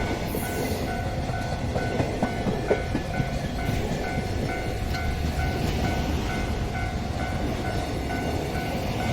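Long freight train of container wagons rolling past, its wheels clacking on the rails. A level-crossing warning bell rings steadily in an even, repeating pattern.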